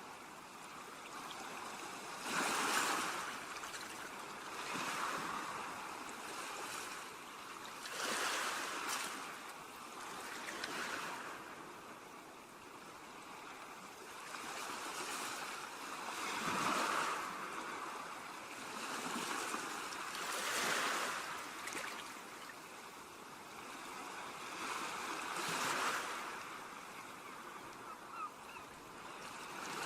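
Ocean surf on a beach: waves breaking and washing up the shore, surging and fading every few seconds.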